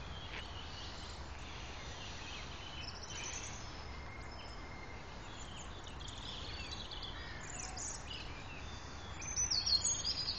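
Birds chirping and calling over steady low outdoor background noise, with a burst of louder, falling calls near the end.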